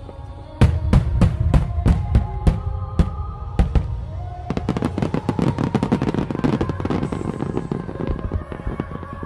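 Aerial firework shells bursting: a string of sharp bangs about three a second, then from about halfway a dense, rapid crackle of many small bursts, over background music.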